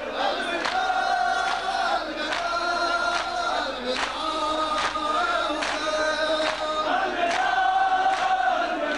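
A crowd of men chanting a noha (Urdu mourning lament) together, with sharp matam beats keeping time a little over once a second.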